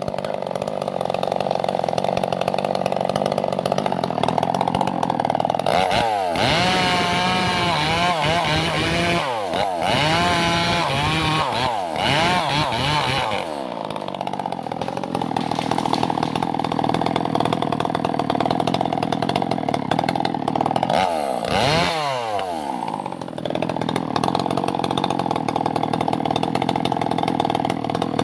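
Two-stroke chainsaw running at high revs while cutting a tree. The engine pitch drops and sweeps back up several times through the middle stretch, and once more about three quarters of the way in, as the throttle is eased off and opened again.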